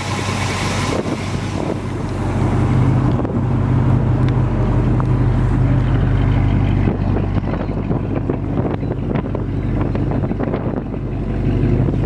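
Fresh 350 crate V8 idling steadily through shorty headers and dual exhausts, a low, even rumble that grows louder about three seconds in.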